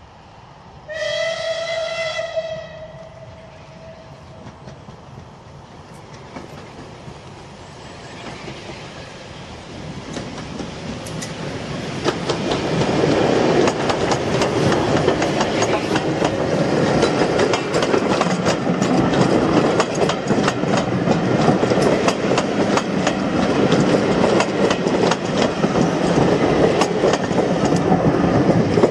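Unrebuilt Bulleid West Country class steam locomotive 34092 gives one whistle of about a second and a half, then draws near and passes hauling coaches, growing loud about halfway through. The wheels clatter over the rail joints as the train goes by.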